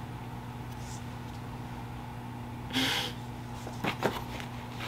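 Steady low hum of a quiet room. About three seconds in there is a short rustle, and about a second later a couple of light knocks, from handling a small paper packet that holds a metal bottle opener.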